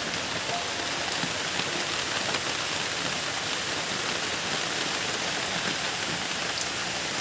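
Heavy rain falling steadily, an even hiss with a few sharper drop taps scattered through it.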